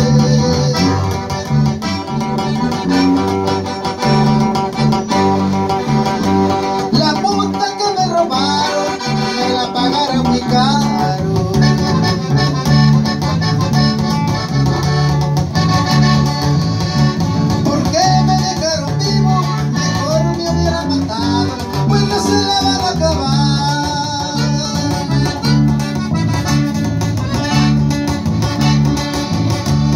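A live norteño band playing: an accordion carries the melody over a strummed acoustic guitar and an electric bass line.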